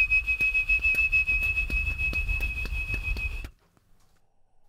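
Beatboxers imitating a passing train with their mouths: a steady high whistle over a low rumble, with a clicking rhythm of about four clicks a second. It cuts off suddenly about three and a half seconds in.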